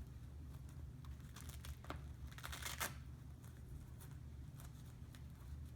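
Velcro straps of a compression wrap being peeled open: a crackling rip, loudest about two and a half seconds in, among a few shorter rips and rustles, over a steady low hum.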